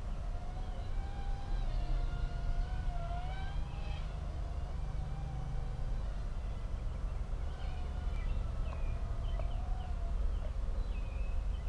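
Outdoor background noise: a steady low rumble, a faint wavering tone, and short high chirps near the end.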